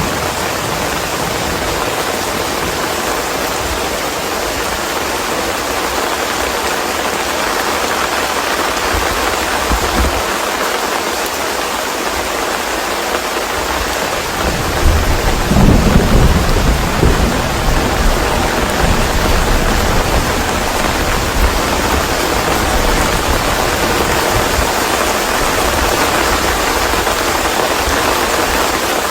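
Steady heavy rain hissing throughout. About halfway through, a low rumble of thunder rolls in, the loudest sound here, and dies away over a few seconds.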